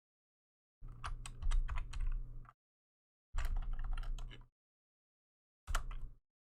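Computer keyboard typing a command line in three bursts of keystrokes: a long run of about two seconds, a shorter one of about a second, and a brief last few keys.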